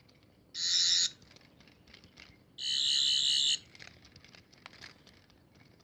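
Character Options Twelfth Doctor sonic screwdriver toy playing its high-pitched warbling electronic sound effect twice, a short buzz and then a longer one about a second long, with faint button clicks between. The toy has been scorched over a flame, yet its sound still works.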